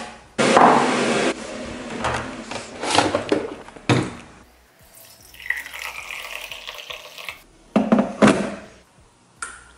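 Making a cup of tea: an electric kettle's switch clicks, then water pours and splashes. A longer pour follows in the middle, and two knocks near the end as things are set down on the worktop.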